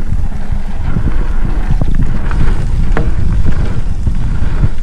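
Mountain bike riding a dirt trail: a steady low rumble from wind buffeting the microphone and from the tyres, with scattered sharp clicks and knocks from the bike rattling over the ground.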